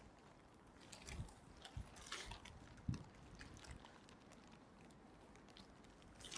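Near silence with a few faint soft knocks and rustles between about one and three seconds in.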